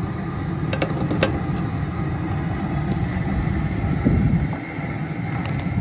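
Propane burner of a crawfish cooker running steadily under the boil pot, a continuous low rumbling noise, with a few light clicks about a second in.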